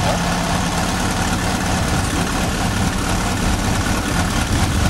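Motorglider's propeller engine idling steadily on the ground, a continuous low drone with an even hiss over it.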